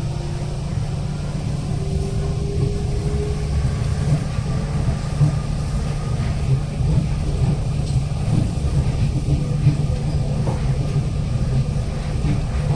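Nippori-Toneri Liner rubber-tyred automated guideway train running at speed along its elevated concrete guideway, heard from inside the front car: a steady low rumble.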